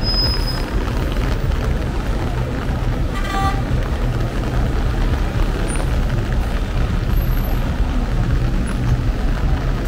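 Steady low rumble of a large vehicle engine idling, with a brief vehicle horn toot about three seconds in.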